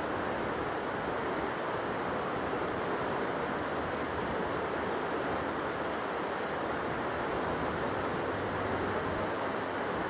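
Steady, even rushing noise with no bird calls or tapping.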